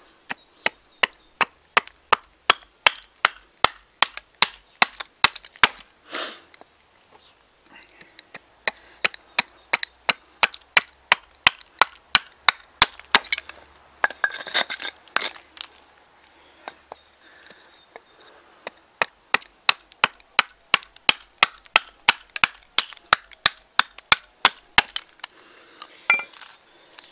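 Axe chopping into a seasoned alder spoon blank, thinning the back of the spoon with quick, light strokes, about three a second, in three runs with short pauses between.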